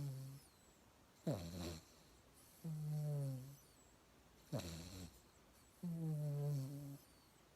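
Mixed-breed dog snoring in its sleep, sounding on both the in-breath and the out-breath: each breath is a short snort that drops in pitch, followed about a second and a half later by a longer, steady, low-pitched snore. Two full breaths of this in a regular rhythm.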